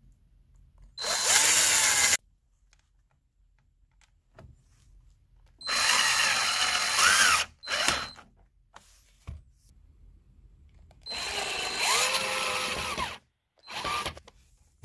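Power drill-driver driving screws in three runs of one to two seconds, each followed by a short blip of the trigger, the motor's pitch rising and falling as the trigger is squeezed and eased off.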